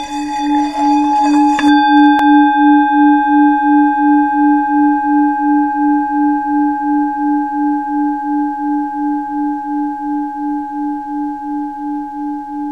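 A bell-like ringing tone with a low note that pulses about three times a second. About two seconds in a sharp strike adds higher ringing overtones, and the sound then slowly fades.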